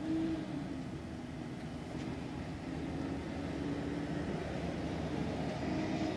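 Semi truck's diesel engine running as the tractor-trailer pulls slowly past close by, the hum growing gradually louder.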